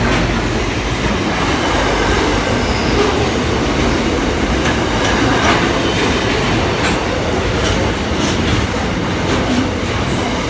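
Container freight wagons rolling past close by: a steady, loud rumble of steel wheels on rail, with brief high clicks and squeaks from the wheels through the second half.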